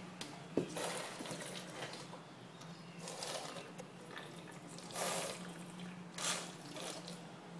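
Two children slurping and sucking spilled liquid straight off a wooden floor with their mouths: about four short wet slurps, a second or two apart. A sharp click about half a second in.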